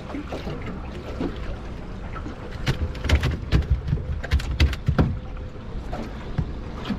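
Sounds of a small fishing boat: a steady low rumble of wind and water, with a run of sharp clicks and low knocks about midway through.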